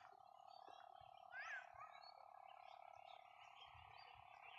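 Faint chorus of frogs as a steady drone, with scattered high chirps and one louder rising call about a second and a half in.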